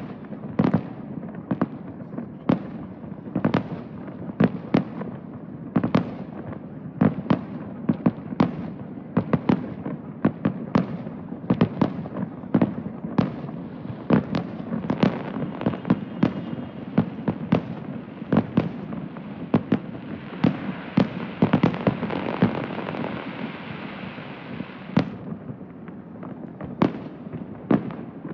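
Aerial fireworks display: shell bursts going off in quick succession, several booms a second, with a stretch of dense hissing crackle toward the end.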